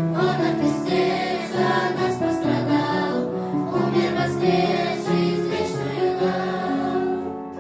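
A choir singing a song with musical accompaniment, the sound easing down near the end.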